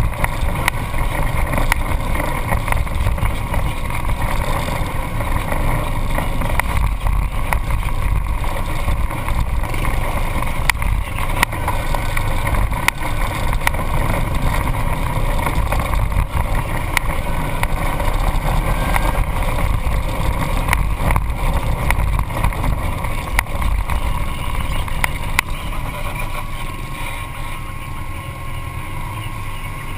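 Off-road vehicle engine running while driving over a rough dirt trail: a steady low rumble with wind buffeting and frequent knocks and rattles from bumps, easing slightly near the end.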